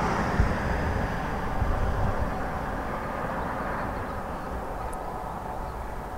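Four coupled Class 68 diesel-electric locomotives running light in the distance: a steady engine drone and rail rumble that fades gradually as they move away, with a few low thumps in the first two seconds.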